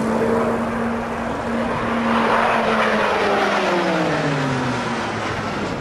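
A pair of propeller aircraft flying past in formation. Their engine drone holds a steady pitch, is loudest about two seconds in, then slides down in pitch over the next two seconds as they pass and move away.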